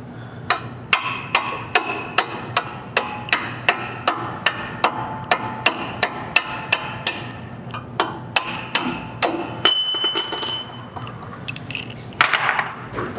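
Steel hammer blows at about two and a half a second, striking metal to drive apart the tie rod end and the steering knuckle of a Ford Raptor's front suspension. The blows stop after about nine seconds, followed by a brief high metallic ring.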